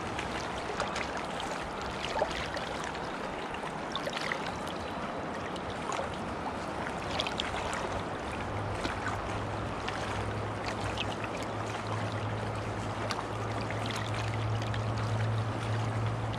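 River current rushing around a wader's hands, with small splashes and drips as a steelhead is held in the water for release. A steady low hum comes in about halfway through and stays.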